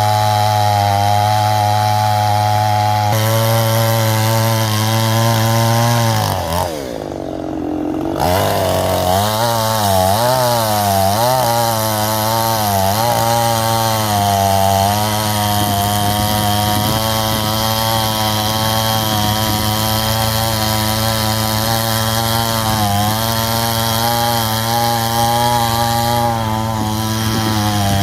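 Petrol chainsaw engine running at high speed. About six and a half seconds in its pitch drops sharply, then it revs back up in several wavering surges and settles into a steady high run.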